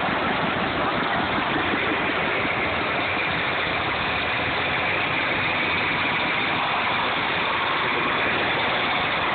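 Vintage John Deere farm tractor engines running steadily as the tractors drive past close by.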